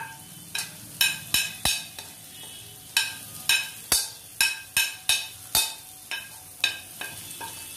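Steel spoon scraping and clacking against a plate and a steel wok in irregular strokes, about two a second, as spice powders are tipped into frying onion-tomato masala. A faint sizzle of the frying runs underneath.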